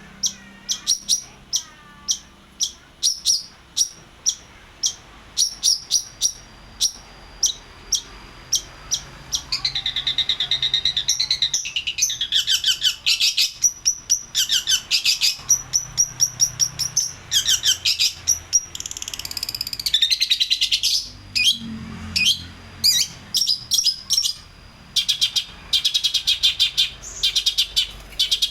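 Long-tailed shrike (pentet) singing: a run of sharp, evenly repeated chirps, then a long stretch of rapid, varied warbling through the middle, returning to sharp chirps near the end.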